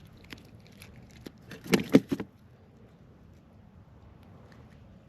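A short cluster of knocks and rattles about two seconds in, with a few faint clicks before and after.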